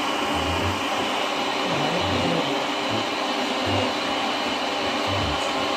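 A steady whirring hiss, even in level, with soft low thumps recurring irregularly about every second.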